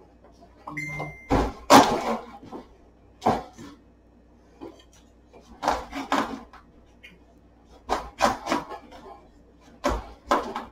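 Chef's knife being forced down through the hard rind of a spaghetti squash, the blade and squash knocking against the cutting board in an irregular series of thuds, about a dozen in all.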